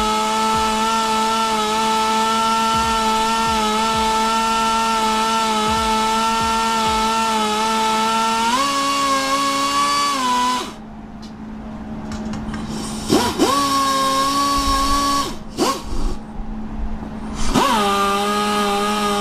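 Electric drill spinning a stone cylinder hone inside a drum-brake wheel cylinder, its motor giving a steady whine. It speeds up briefly, stops about halfway through, then starts and stops again before running on to the end.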